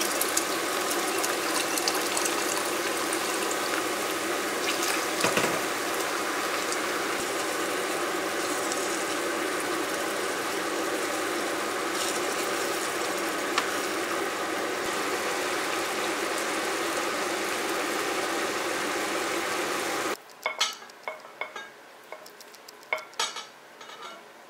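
Beef and tomato meat sauce cooking in a frying pan on the stove with a steady hiss, while water is poured in and it is stirred with a wooden spoon. About twenty seconds in this stops abruptly and gives way to a few light clinks and taps of tongs and a ladle serving pasta onto a plate.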